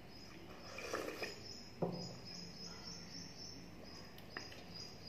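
A cricket chirps steadily in the background, short high pulses two or three times a second, while someone eats by hand: chewing sounds about a second in and a single knock on a steel plate just before two seconds, the loudest sound here.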